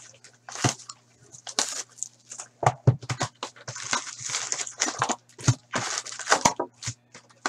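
Packaging of an Upper Deck Series 2 hockey card box being handled and opened: cardboard, plastic wrap and a paper insert sheet rustling and crinkling in an irregular run of crackles, scrapes and clicks.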